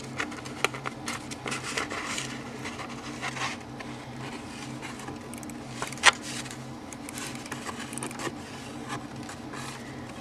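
Handling noise of a sheet of paper and a Mitutoyo digital micrometer as the paper is measured: scattered small clicks and rustling, then one sharper click about six seconds in, over a steady low hum.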